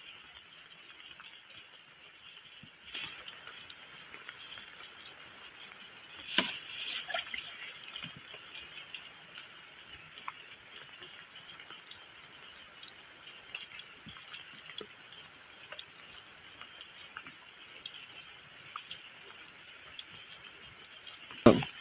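Water dripping and splashing while vegetables are washed, over a steady high-pitched drone of insects. A few light clicks come about six to eight seconds in, and there is one sharp knock near the end.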